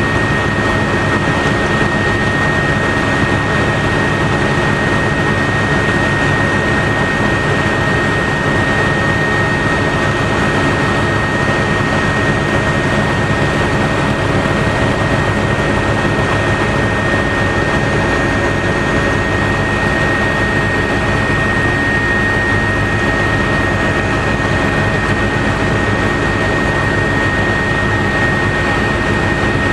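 Helicopter in steady cruise flight, heard from inside the cabin: an even engine and rotor noise with a constant high whine.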